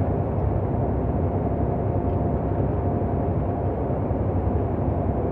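Steady engine and road noise inside a truck cab cruising at highway speed.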